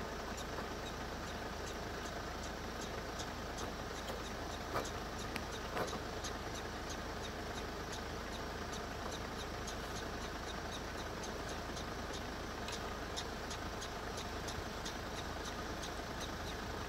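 Steady low hum of an idling vehicle engine, with faint regular ticking throughout and two brief clicks about five and six seconds in.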